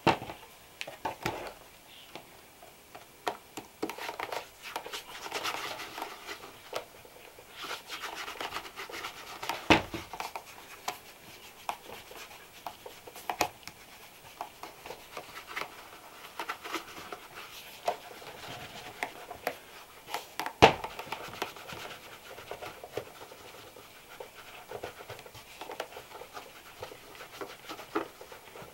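Hands working over a leather shoe during shoe care: irregular scratchy rubbing strokes, with scattered sharp taps and knocks as the shoe and tools are handled, the loudest about two-thirds of the way through.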